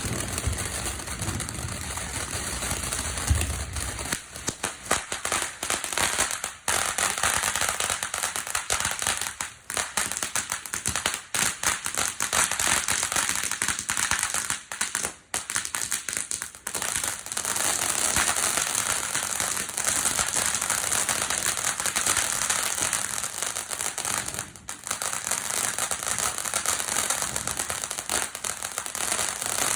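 Fireworks going off in a long, dense run of rapid crackles and pops for nearly half a minute, with a few brief lulls.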